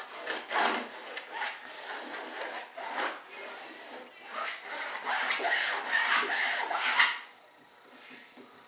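Repeated rubbing strokes as fiberglass cloth is pressed and worked down onto tacky resin in a wing mold. The strokes stop about seven seconds in.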